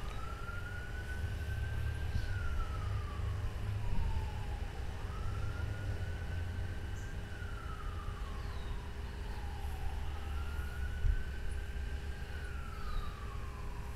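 Faint siren of an emergency vehicle wailing, its pitch slowly rising and then falling, about one cycle every five seconds, over a steady low rumble.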